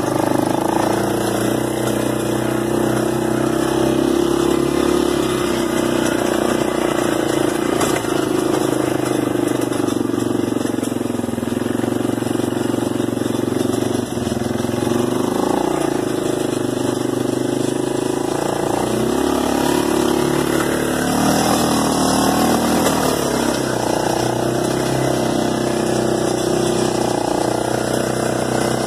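Arctic Cat 375 automatic 4x4 ATV's single-cylinder four-stroke engine running under way as the quad is ridden. The engine note falls and rises a few times with the throttle and speed.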